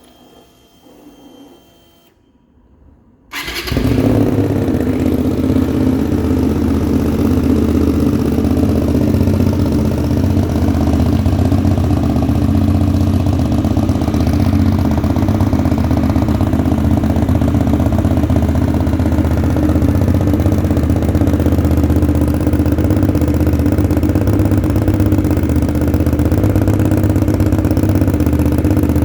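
Kasinski Mirage 250 EFi motorcycle's V-twin engine, breathing through a Roncar Scorpion semi-direct exhaust tip, starting about three seconds in and then idling steadily. The sound echoes in a closed shed.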